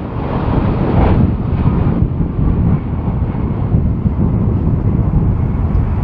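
Twin-engine jet freighter's engines rumbling as it comes in low to land, mixed with heavy gusty wind buffeting the microphone.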